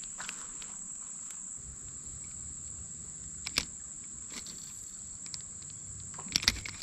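Steady high-pitched drone of insects in the streamside woods, with a few short sharp clicks or knocks, the loudest a little over three seconds in and a double one near the end.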